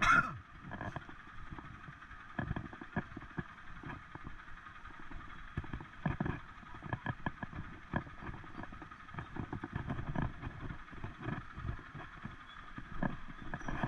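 ATV running at low speed over a bumpy dirt track, its engine a steady hum under frequent irregular knocks and rattles from the jolts, with one short sharp noise right at the start.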